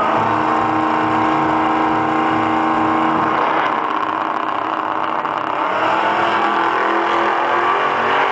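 Two drag-racing cars, one with a supercharged engine, running at the starting line with a steady note, then launching about halfway through and accelerating away down the strip, their engine pitch rising through the last couple of seconds.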